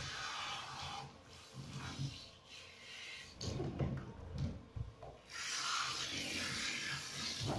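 Water spraying from a handheld shower head onto a wet cat in a bathtub, with the rubbing of wet fur. The spray hiss stops for a few seconds in the middle, where louder uneven scuffling is heard, then resumes near the end.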